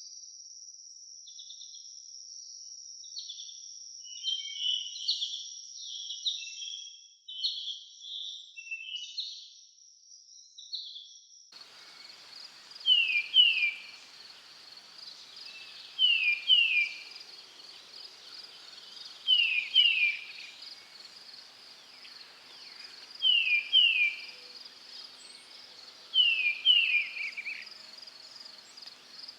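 Insects trilling steadily with birds chirping. About a third of the way in the ambience changes abruptly to a different insect chorus, over which a bird repeats a loud two-note call, both notes falling, about every three seconds.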